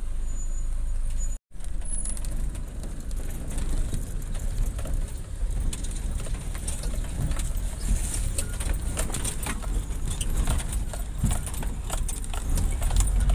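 Off-road vehicle's engine running with a heavy, steady low rumble and many small clicks and crackles throughout; the sound drops out for a moment about a second and a half in.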